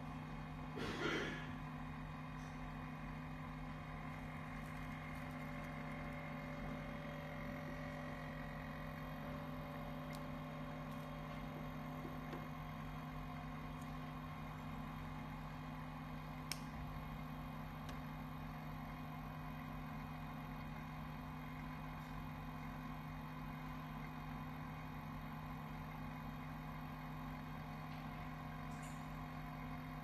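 Prima IPS-C500 continuous inkjet printer humming steadily as it works through its shutdown sequence, several constant tones layered over a low drone. A brief rush of noise comes about a second in, and a single sharp click near the middle.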